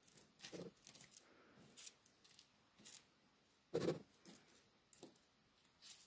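Metal tweezers scraping and tapping on cardboard while picking through a barn owl pellet's fur and small bones: faint scattered scratches and clicks, with one louder sound just before four seconds in.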